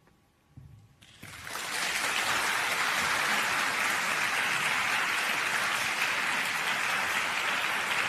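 Audience applause breaking out about a second in, swelling quickly and then holding steady.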